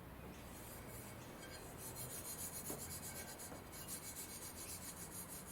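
Faint, quick rasping strokes of a hand file on hot rolled steel plate, about four strokes a second.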